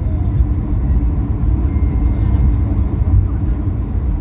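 Airbus A220 cabin noise during the landing roll-out: a steady low rumble from the wheels on the runway and the rushing air, with a steady hum over it.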